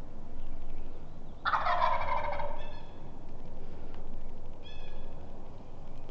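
Wild turkey gobbler gobbling once, a loud rattling gobble about a second and a half in that lasts about a second. A few short, clear higher notes follow.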